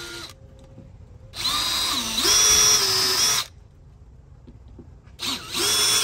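DeWalt cordless drill boring screw holes through a doorbell mounting bracket into door trim. There are two runs of motor whine: the first lasts about two seconds and its pitch sags briefly as the bit loads up, and the second starts near the end.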